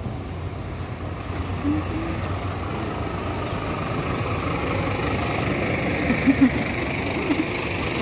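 Steady city road traffic, the engine and tyre noise of passing vehicles, growing a little louder around the middle.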